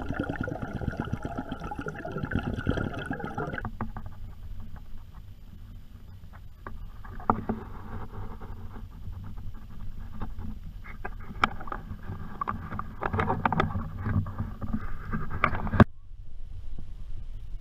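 Muffled rushing and bubbling water, picked up by a submerged action camera, for about the first three and a half seconds. The camera is then above water: quiet water lapping around a kayak, with scattered light knocks and taps against the hull and gear. The sharpest knock comes just before the sound cuts off near the end.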